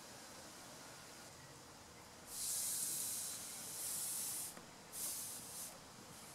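Air blown through a two-stroke blower's fuel line and in-tank fuel filter in three short hissing puffs, a flow test that shows the filter is not clogged.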